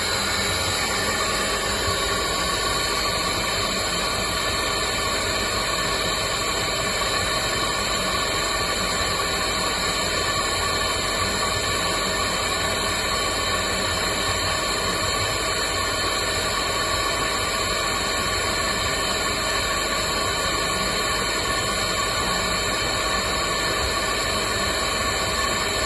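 Kaeser SX6 oil-injected rotary screw air compressor running steadily: a constant hiss with many steady tones over it, with no change in load or speed.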